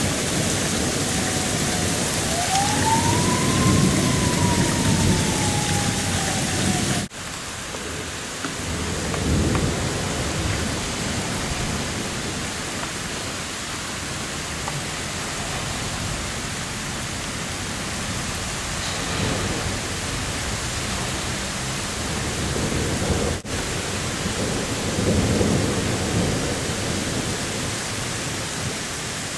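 Heavy rain pouring down with thunder rumbling several times. During the first several seconds a siren wails once, rising and then slowly falling. The sound breaks off for an instant twice where shots are joined.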